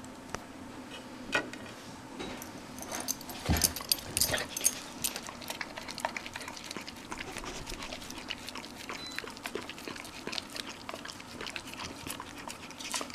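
A dog moving about close by: a run of sharp clicks and small rustling sounds, loudest and densest a few seconds in.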